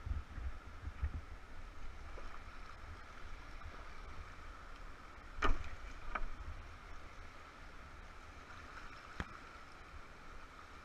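River water rushing steadily around a whitewater kayak as it is paddled downstream, with a low rumble underneath. A few sharp knocks cut through, the loudest about halfway through, a smaller one just after it and another near the end.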